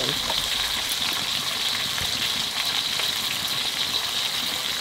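Pieces of katla fish frying in hot oil in a large steel karai, making a steady, even sizzle.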